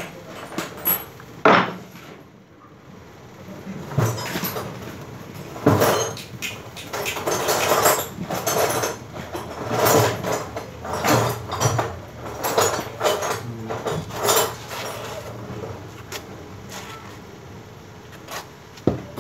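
PVC electrical conduit being worked by hand with a hand tool: a run of irregular knocks and scraping strokes, busiest through the middle and thinning out near the end.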